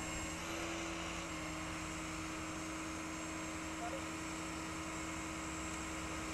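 Tow truck engine running steadily at idle, a low steady hum over a constant wash of highway traffic noise.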